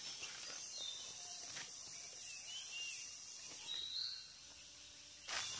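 Outdoor woodland ambience: a steady high insect hiss with a few short bird chirps scattered through it, and louder rustling near the end.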